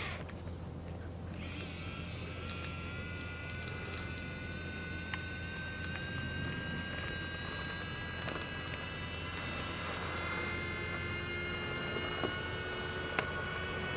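Electric motors and plastic gearing of a 3D-printed 1/14 scale RC articulated dump truck whining steadily as it runs, starting about a second in; a lower tone joins near the end, with a few light clicks.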